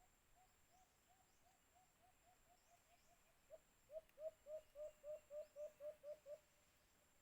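A white-eared brown dove calling a series of short, low hooting notes, about four a second. The notes are faint at first, then a louder run of about a dozen notes comes from about halfway and stops shortly before the end.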